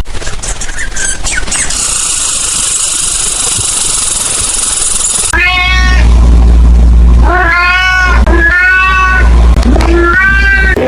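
A steady hiss, then a domestic cat meowing four times, each meow a drawn-out, bending call.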